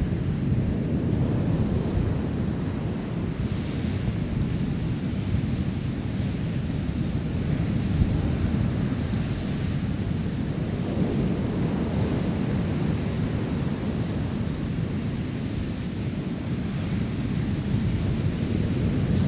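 Wind buffeting the microphone outdoors: a steady low rumble that swells and eases a little, with no distinct sounds on top.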